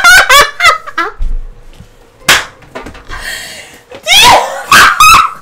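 Women laughing loudly in bursts, with a single sharp smack a little over two seconds in.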